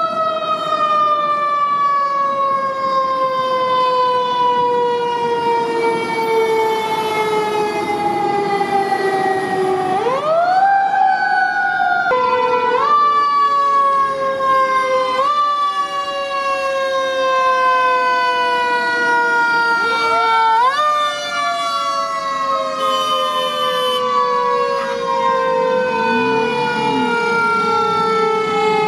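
Fire truck mechanical siren, spun up sharply several times and left to coast slowly down in pitch between each wind-up.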